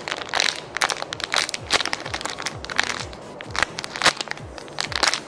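Clear plastic packaging crinkling and crackling in sharp, irregular bursts as fingers press and handle a squishy toy inside it, close to the microphone. Background music with a regular bass beat runs underneath.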